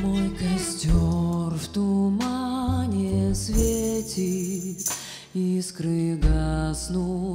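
Instrumental passage of a romance arranged for a small band with string quartet: a melody line with vibrato over changing double-bass notes, with light percussion strokes a few times.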